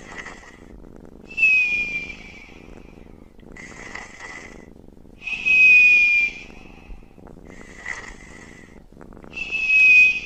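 A sleeping man breathes slowly with a whistling snore, about one breath every two seconds. Every other breath is louder, with a high whistle that slides slightly down in pitch, three times in all.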